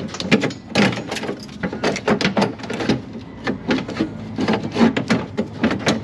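Irregular clattering and knocking of a metal window regulator being worked into a car door's inner panel, a quick run of sharp knocks and clicks as it bumps against the door shell.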